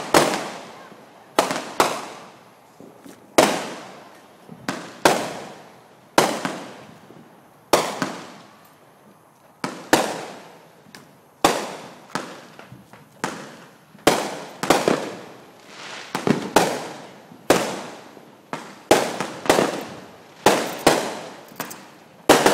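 Consumer aerial fireworks going off in a steady series of sharp bangs, about one every second, each trailing off in a fading echo.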